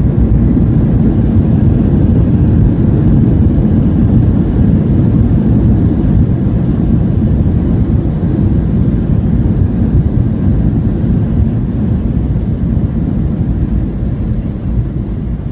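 Cabin noise of a Boeing 737-900ER on its landing rollout with spoilers raised: a loud, steady low rumble of the engines and wheels on the runway, easing slightly near the end as the jet slows.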